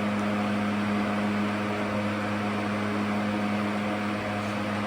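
Vornado Model 80 box fan running steadily at speed: an even rush of air over a constant low motor hum.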